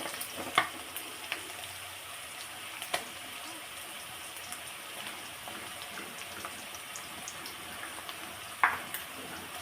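Onions, curry leaves and freshly added ginger-garlic paste frying in hot oil in a kadai, a steady sizzle, with a few sharp clinks of a spoon against the pan, the loudest near the end.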